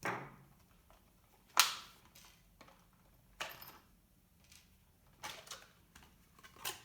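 A few sharp plastic clicks and light rattles, spaced a second or two apart, as the plastic body of a small RC monster truck is taken off its chassis.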